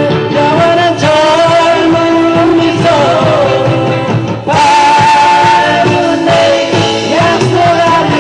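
Live band playing amplified rock-style music with electric guitars, drums and keyboard, and a singer's voice carrying the melody; it dips briefly and comes back louder about halfway through.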